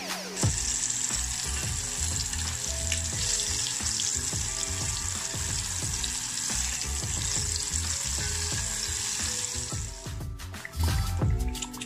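Battered fish fillets deep-frying in hot oil in a saucepan: a steady sizzle that starts about half a second in and cuts off near the end.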